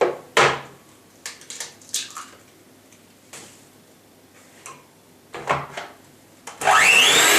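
A few clicks and knocks of kitchenware being handled, then near the end an electric mixer switches on: a whine that rises quickly as the motor spins up, then a loud steady whir as it starts whisking eggs and sugar.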